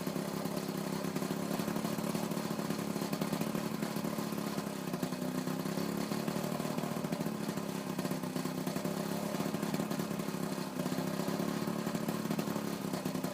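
An engine idling steadily, its pitch sagging and recovering slightly a few times.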